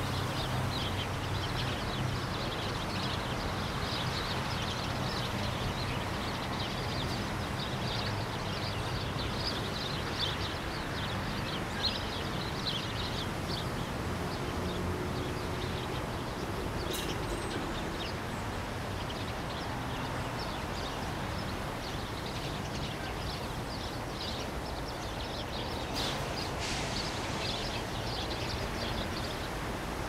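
Park ambience: the steady rush of a lake fountain's water jets, with many small birds chirping over it and a low hum of distant city traffic.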